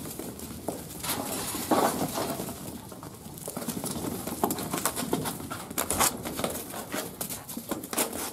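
Many sheep hooves trotting and scuffling on dirt, an irregular patter of short knocks, as a herding dog moves the mob through the yard.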